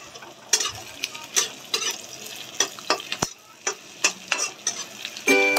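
A metal spatula scraping and tapping against a metal kadhai in irregular strokes while sliced onions fry in oil with a light sizzle. Music with a plucked melody comes in near the end.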